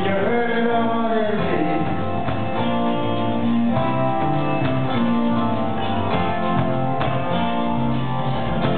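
Live band playing a country-folk song: acoustic guitar with electric guitar, bass guitar, keyboard and drums.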